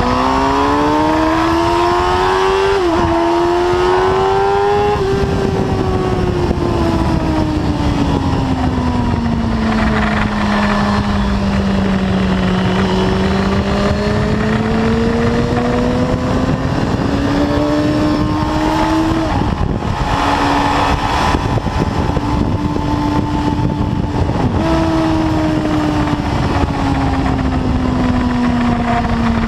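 Suzuki sport bike's engine being ridden hard on track, with wind rushing past. It revs up through a quick upshift about three seconds in, then winds down in a long stretch off the throttle. It pulls up again to another upshift about two-thirds through, then jumps up in pitch on a downshift and winds down.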